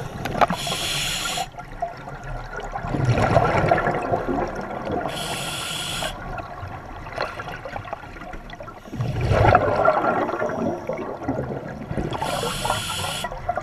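Scuba diver breathing underwater through an open-circuit regulator: three short hissing inhalations alternate with two louder rushes of exhaled bubbles, about one breath every four seconds.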